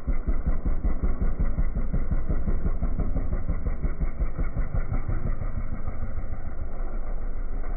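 125cc Fury pit bike's single-cylinder four-stroke engine running steadily, its exhaust a fast, even pulsing.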